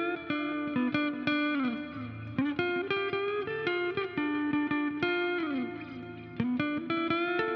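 Background music: a plucked electric guitar melody with bent notes over a bass line.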